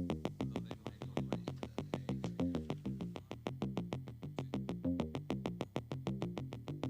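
Electronic intro music: quick, evenly spaced synthesizer and drum-machine beats over a stepping bass line.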